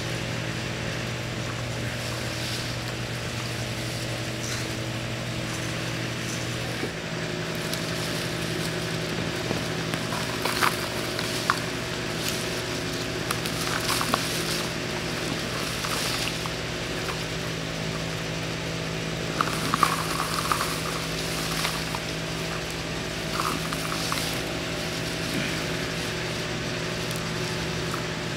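A steady mechanical hum of several tones, which changes about seven seconds in, under the rustle and crackle of old tomato vines being pulled up and dragged, in clusters from about ten seconds in.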